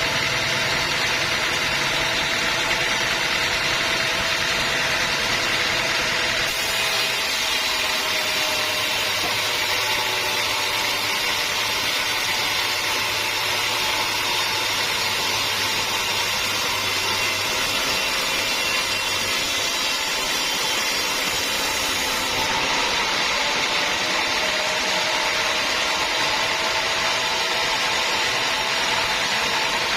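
Sawmill saw running steadily and cutting through a teak log. The sound turns brighter and hissier from about six seconds in until about twenty-two seconds in.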